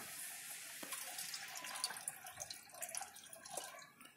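pH-down solution from the greenhouse's relay-switched dosing line trickling and splashing into a hydroponic reservoir tank, with scattered small drips. The flow thins out near the end.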